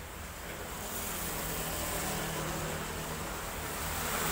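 Motor scooter passing on a wet road: a low engine hum and the hiss of tyres on wet asphalt grow louder as it approaches, loudest near the end.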